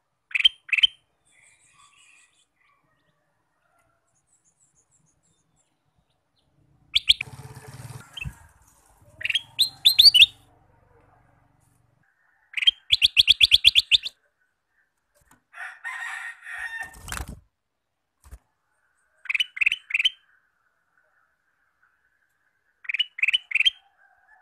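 Male ruby-throated bulbul (kutilang emas) singing in short bursts of two to four quick, bright notes every few seconds, with a rapid trill of about a dozen notes about halfway through. A fainter, scratchier call follows a few seconds after the trill.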